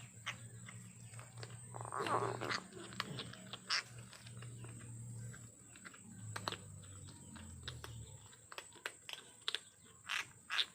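Kitten growling low while eating, the growl stopping about eight seconds in, with a louder rasping burst about two seconds in. Quick smacking, chewing clicks throughout.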